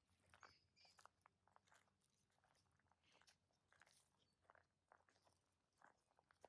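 Faint, irregular crunching and clicking of a dog chewing something hard, several crunches a second.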